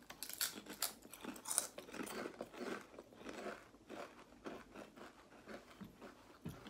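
Two people biting into and chewing crisps: a run of crisp crunches, loudest in the first couple of seconds, then quieter chewing.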